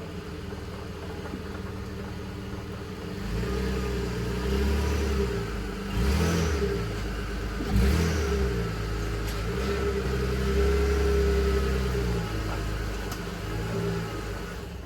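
Nissan Murano's 3.5-litre V6 engine running and revved in several surges, its pitch rising and falling, loudest about six and eight seconds in, as the SUV is driven up onto car ramps.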